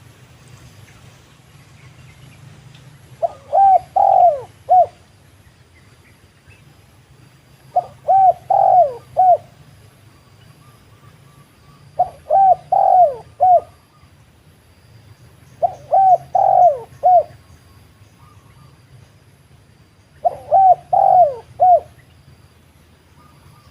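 Spotted dove cooing: five phrases of four or five quick coos each, repeated about every four seconds.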